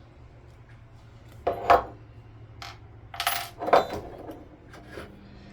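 Small metal parts clinking and clattering against a hard surface: a few sharp, ringing hits, the loudest ones under two seconds in and just before four seconds.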